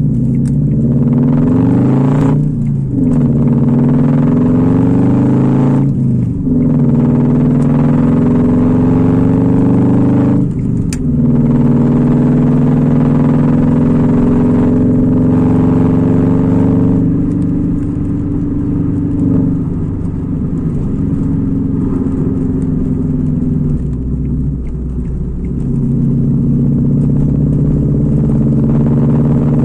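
Ford Fiesta engine breathing through unequal-length headers and a 2.5-inch open pipe, accelerating through the gears. The pitch climbs and drops three times at the upshifts, about two and a half, six and eleven seconds in, then holds at a steady cruise.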